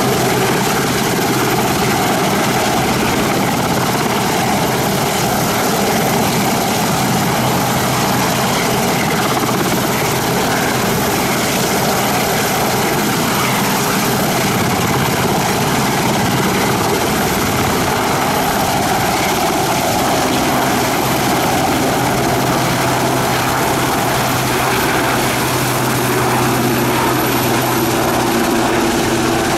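Westland Sea King helicopter with twin Rolls-Royce Gnome turboshaft engines, hovering low and then climbing away: a loud, steady rotor and engine roar with a thin high turbine whine.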